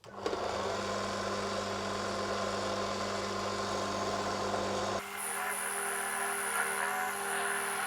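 Small metal lathe running steadily while taking light cuts on a brass disc. About five seconds in the sound changes abruptly to a different steady hum with a high whine over it.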